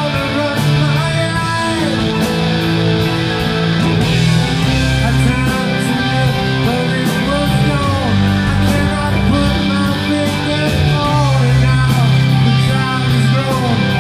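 A rock band playing live: drum kit with steady cymbal strikes, electric guitars and keyboard, running continuously at full volume.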